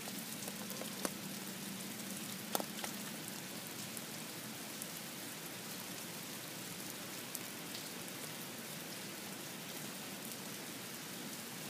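Steady rain falling, an even hiss with a few sharper drop ticks in the first three seconds.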